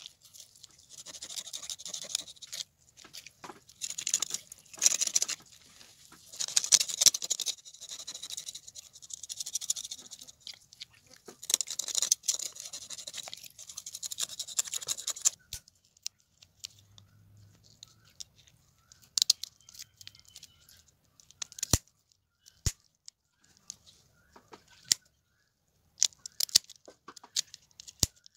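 A knife scraping the scales off a tilapia on a stone surface, in repeated rasping strokes for about fifteen seconds. After that it is mostly quiet, with scattered sharp clicks and snips as the fish is trimmed with scissors near the end.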